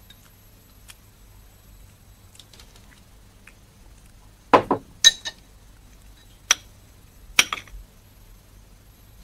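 Eating utensils clinking against porcelain bowls and dishes at a meal: about five sharp, short clinks in the second half, the first being the loudest.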